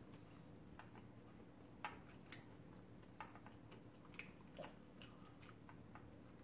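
Near silence: a low steady room hum with scattered faint clicks, the small sounds of eating ramen with chopsticks and a spoon at a bowl.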